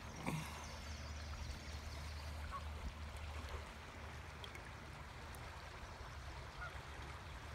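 Creek running high, a steady rush of flowing water.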